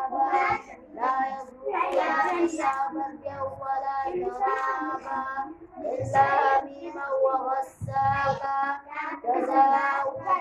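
Young children reciting the Quran aloud in a melodic chant, in short phrases with held notes and brief pauses between them.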